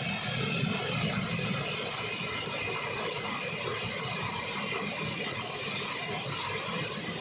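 Steady rush of falling water from the Upper Düden waterfall, an even noise that does not change.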